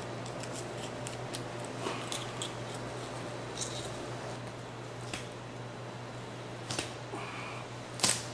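A butcher's knife cutting and scraping through raw beef rib meat while trimming off cartilage and membrane, giving scattered small clicks and scrapes, with a sharper knock near the end.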